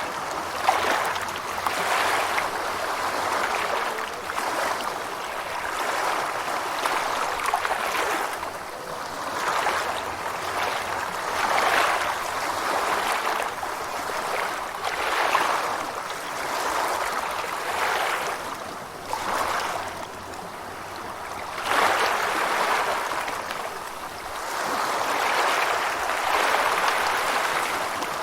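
Gentle ocean waves washing in, a continuous rush of surf that swells and eases every few seconds.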